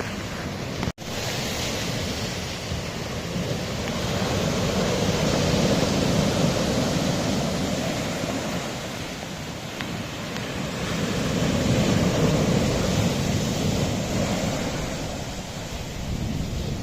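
Sea waves washing against a rocky shore, swelling and ebbing twice in long surges, with some wind on the microphone. A brief dropout about a second in cuts the sound for an instant.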